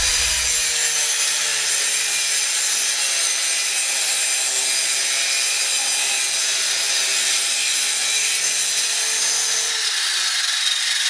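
115mm 630W angle grinder running with its disc grinding against a workpiece: a loud, steady hiss over the motor's whine, whose pitch dips slightly under load.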